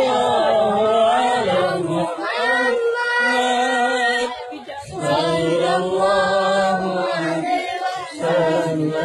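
Voices chanting a devotional song together in long, held phrases with short breaks between them.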